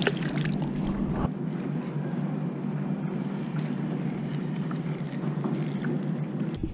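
Small waves lapping against a kayak's hull, with wind on the microphone, as a steady wash of water and wind noise.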